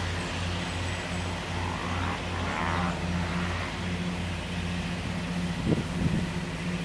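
Fendt 724 Vario tractor's six-cylinder diesel engine running steadily under load while its Krone EasyCut butterfly mower cuts grass. It makes a low drone with a regular pulse, and a few short low thumps come near the end.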